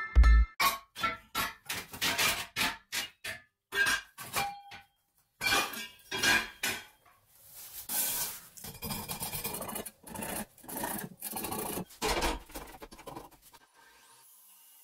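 Gloved hands handling, measuring and marking a square steel tube on a workbench: a run of short, irregular scraping and rubbing strokes of metal, stopping about a second before the end.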